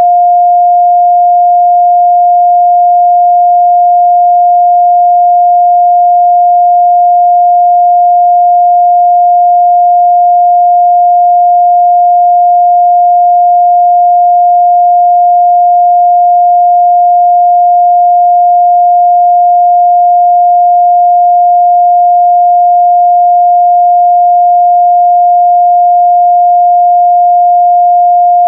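A steady, loud 706 Hz pure sine-wave test tone, one unbroken pitch held without change.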